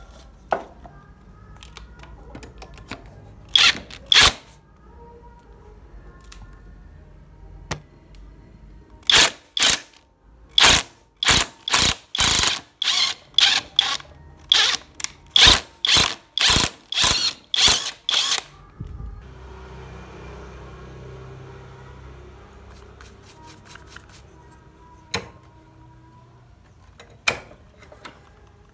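Hammer striking steel in sharp, ringing blows: two a few seconds in, then a run of about fifteen evenly spaced blows, under a second apart, lasting about ten seconds, and two single taps near the end.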